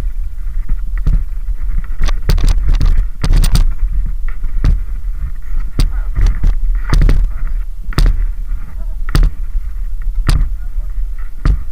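Wind buffeting a body-worn camera's microphone on a mountain bike riding down a rough dirt trail, under frequent sharp, irregular clatters and knocks from the bike and tyres jolting over bumps.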